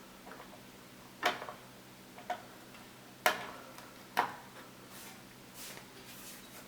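Sharp plastic clicks and knocks, four of them about a second apart, then a softer rustle: a PCIe riser ribbon cable being handled and pushed into the motherboard's slot.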